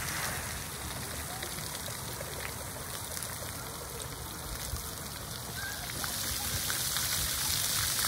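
Splash pad water jets spraying and pattering onto wet concrete as a steady hiss, louder and brighter about six seconds in.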